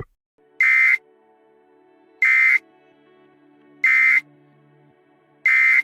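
Four short, loud electronic alert beeps about a second and a half apart, over a faint steady synth drone: emergency alert tones.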